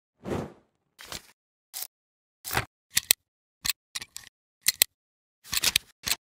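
Camera shutter sound effects: about a dozen sharp mechanical clicks and short clacks at irregular spacing, each cut off into dead silence. The first one is longer and deeper.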